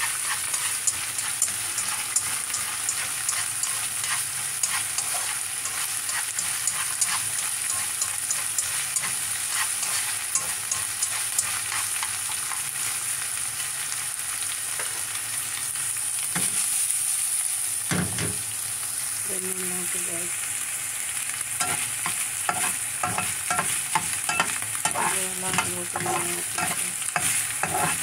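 Chopped preserved radish sizzling in hot oil in a nonstick wok as it is stir-fried, with frequent clicks and scrapes of the stirring utensil against the pan. There is a sharp knock about eighteen seconds in, and a low hum comes and goes in the last third.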